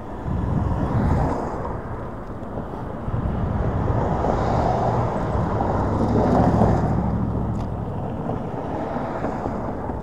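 Wind rushing over the microphone with road rumble from a Hiboy S2 Pro electric scooter's solid tyres while riding. It swells louder about a second in and again around four to seven seconds in.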